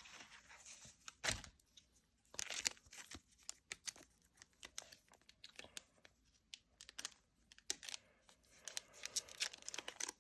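Foil booster pack of Pokémon cards being torn open and crinkled by hand: scattered short rips and crinkles, with a louder rip about a second and a half in. The tearing is fumbling and uneven.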